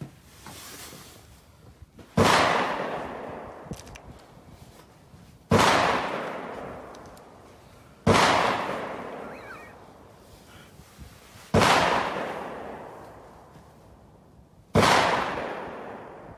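Five shots from a Rock River Arms .308 semi-automatic rifle without a muzzle brake, fired singly about three seconds apart as a slow group. Each crack is followed by a long echo that dies away over two to three seconds.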